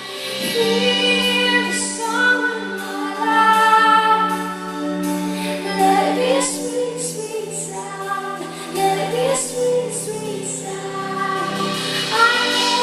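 Live Christian song: a woman singing a held, flowing melody over sustained backing music.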